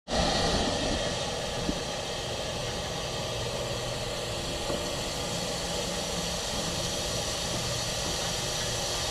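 An engine running steadily, a low hum under an even hiss, with a faint click about two seconds in and again near five seconds.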